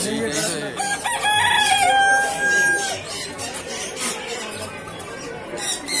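Rooster crowing once: a single long crow starting about a second in, held steady for about two seconds and dropping at the end, over a crowd's chatter.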